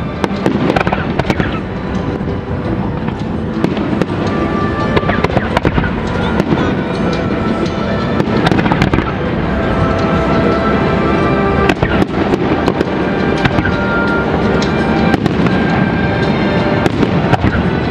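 Aerial fireworks display: shells bursting in quick succession, a dense, continuous run of sharp bangs and crackling.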